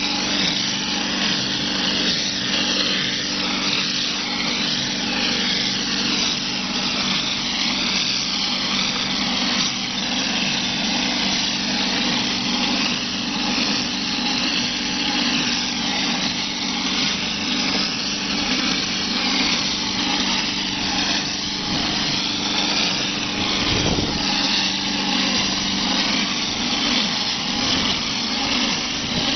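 OHT38 hose-pump plaster spraying machine spraying wet mortar: a loud, steady hiss of air and mortar leaving the spray nozzle over a steady machine hum, with a brief low bump near the end.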